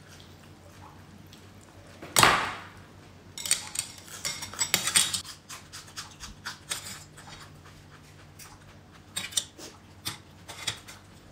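Metal tongs and utensils clinking and scraping against a steel cooking pot as noodles are lifted out, in clusters of sharp clicks. About two seconds in there is one short, loud rush of noise, the loudest thing heard.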